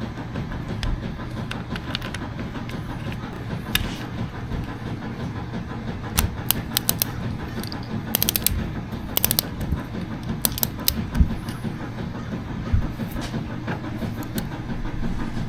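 Ratchet wrench with a 5/8 socket clicking in short, quick runs as a nut on a motorcycle transmission is run down and tightened, over a steady low hum.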